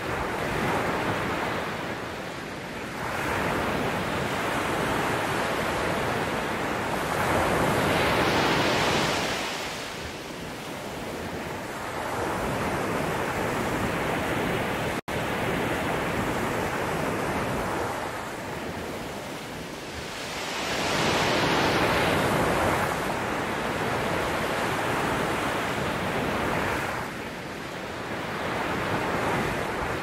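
Ocean surf washing in and ebbing back over a steady, deep brown-noise hum, the waves swelling every few seconds. About halfway through the sound cuts out for an instant.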